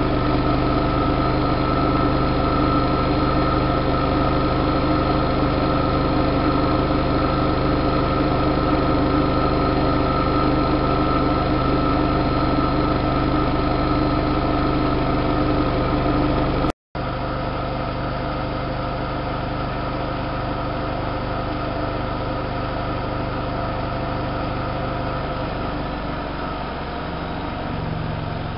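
Siemens Siwamat IQ washing machine running steadily, with a motor hum and a held whine typical of the drum spinning. About two-thirds of the way through it breaks off for a split second, then carries on somewhat quieter.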